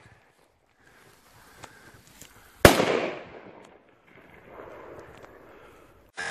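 Homemade firework rocket: a short hiss, then one sharp bang about two and a half seconds in that echoes and fades, followed by a fainter hiss.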